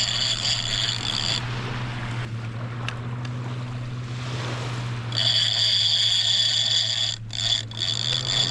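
Fishing reel's clicker buzzing as line is pulled off, in two spells: about the first second and a half, then again from about five seconds in, with a short break near the end. A steady low hum runs underneath throughout.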